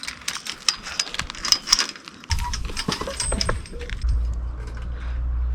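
Metal clinking and jangling, with quick sharp clicks and a thin high ring, for about the first two seconds. A steady low rumble then starts suddenly and carries on.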